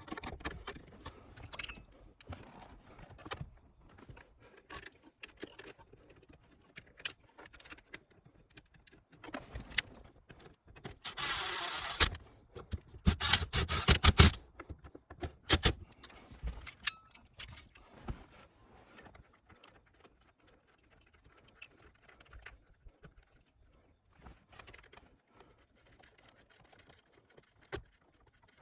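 Metal hand tools and shifter hardware clicking and clanking. A dense burst of rattling comes about eleven seconds in, followed by a run of sharp clanks, then scattered faint clicks.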